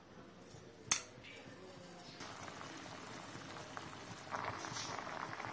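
Water boiling hard in a steel pot of cut drumstick (moringa) pods, a crackly bubbling that starts about two seconds in and grows louder near the end. A single sharp clink comes about a second in, as the salting spoon meets the pot.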